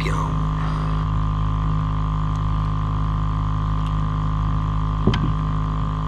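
Steady mechanical hum from machinery on the bass boat, holding one even droning pitch throughout, with a single sharp knock about five seconds in.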